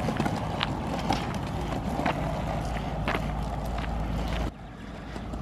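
Skateboard wheels rolling on asphalt: a steady rumble with a few sharp clicks, dropping noticeably quieter about four and a half seconds in.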